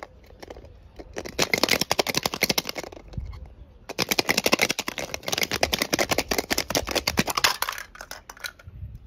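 Small die-cast toy cars clattering over loose stones: a fast stream of hard little clicks and rattles in two stretches, about two seconds and then about three and a half seconds long, with a short pause between.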